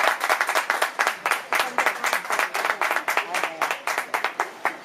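Small group of spectators clapping and applauding after a squash rally ends, the claps thinning out and fading near the end.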